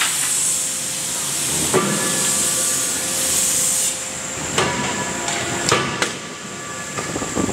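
Steady hiss with four sharp metallic clanks that each ring briefly. These are hot-forged steel connecting rods clanking onto the pile in a wire-mesh bin. The hiss drops away about halfway through.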